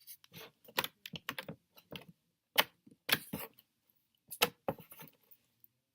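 Slime being squeezed and kneaded by hand, giving an irregular string of sticky clicks and pops.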